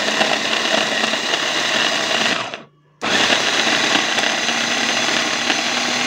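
Electric chopper grinding roasted sesame seeds with pistachios, run in two pulses: the motor and blade run for about two and a half seconds, stop briefly, then run again for about three and a half seconds.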